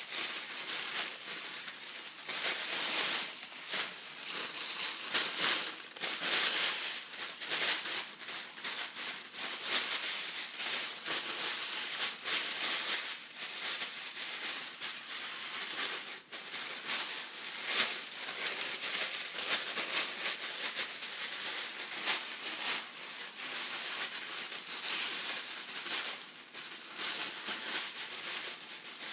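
Gift tissue paper being handled: continuous rustling and crinkling with frequent sharper crackles.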